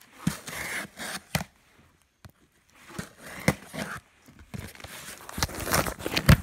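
Cardboard shipping box being opened: irregular scraping and tearing noises with several sharp knocks, busiest and loudest near the end.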